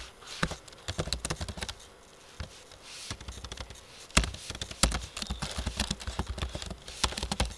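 Typing on a computer keyboard: a run of irregular key clicks, with a short pause about two seconds in and a couple of heavier keystrokes around the middle.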